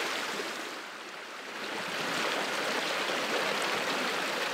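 Fast-flowing creek rushing over rocks, a steady wash of water that dips briefly about a second in.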